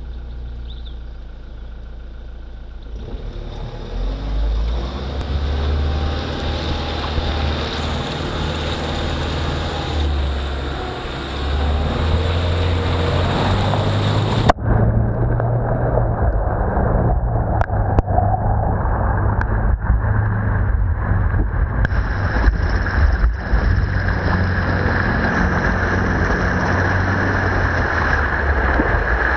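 A 4x4 driving off-road, heard from low beside its front wheel: engine rumble and wind buffeting the microphone, with the tyre churning and splashing through muddy water. About halfway through the sound changes suddenly and gets a little louder, with scattered sharp knocks.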